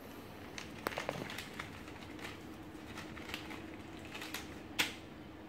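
Hands handling a small grey item over a fabric seat cushion: scattered soft crinkles and small clicks, with one sharper click near the end, over a faint steady hum.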